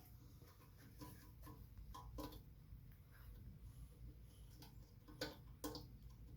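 Faint, scattered metallic clicks of hand tools, a wrench and a screwdriver, working the carburetor mounting bolts on a small flathead engine, with two sharper ticks a little after five seconds in.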